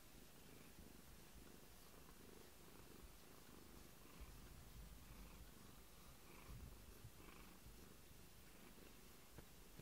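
Domestic cat purring faintly, a low steady rumble, while being stroked.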